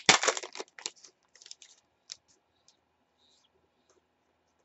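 Foil wrapper of a trading-card pack being torn open and crinkled in the hands, a loud burst of rustling in the first second, followed by a few soft clicks and rustles as the cards are handled.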